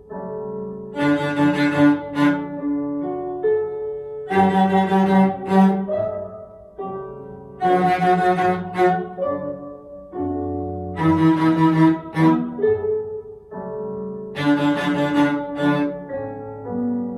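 Cello bowed on the D string with the first, third and fourth fingers stopping the notes, playing a beginner rhythm exercise in short repeated phrases over a recorded piano accompaniment.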